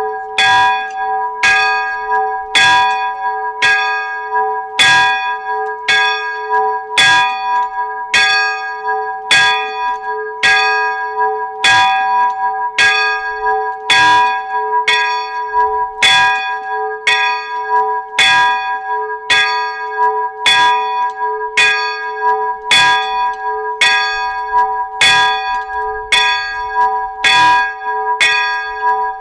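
A single church bell struck over and over in quick, even succession, each stroke landing before the last has died away, so the bell's tone and overtones ring on continuously.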